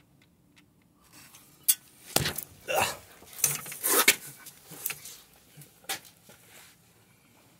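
A scattered run of light metal clinks and knocks, with some rustling, from handling parts around an open engine's timing chain. The loudest knocks come about two and four seconds in.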